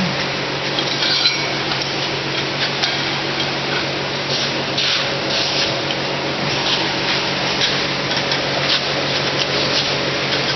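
A steady mechanical hum runs throughout. Over it come short metallic scrapes and clinks, more of them after about four seconds in, as the hot round bar is worked in the twisting clamp.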